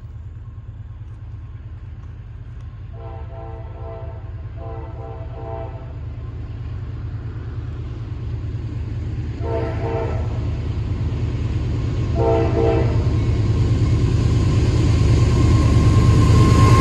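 Norfolk Southern diesel freight locomotive approaching a grade crossing, sounding its multi-tone air horn in four blasts as a crossing warning. The low rumble of the engine and train grows steadily louder as it nears.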